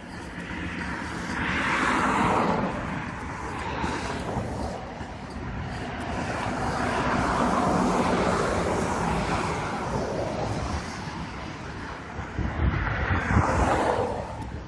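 Cars passing on a road alongside, one after another: each goes by as a swell of tyre and engine noise that rises and fades, about two, eight and thirteen seconds in.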